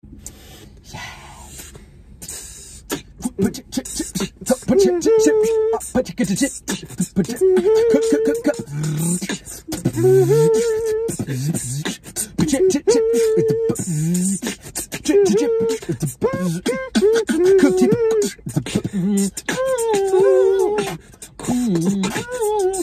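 Beatboxing: rapid sharp mouth clicks and percussive hits under a hummed vocal line that repeats in short phrases. It starts sparse and fills in about four seconds in.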